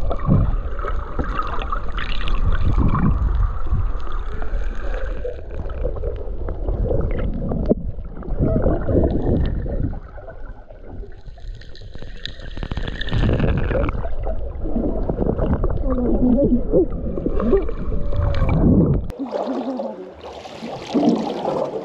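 Water gurgling and bubbling as heard underwater, with a few drawn-out gliding tones. The low rumble cuts off suddenly near the end.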